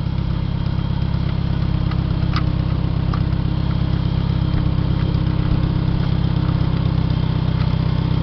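International 140 tractor's four-cylinder engine idling steadily, with a couple of faint clicks about two and three seconds in.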